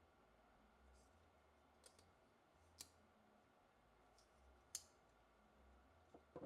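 Near silence broken by about four faint, sharp clicks spread over a few seconds, the loudest about three-quarters of the way through, from a Klein Tools tanto folding pocket knife being handled.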